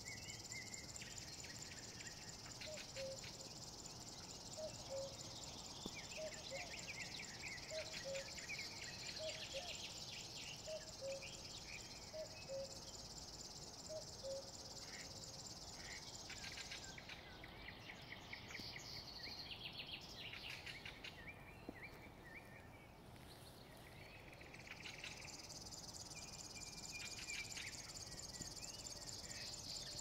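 Faint springtime outdoor ambience of songbirds calling, over a steady high-pitched trill that stops for a few seconds past the middle. Through the first half a low two-note call repeats about once a second.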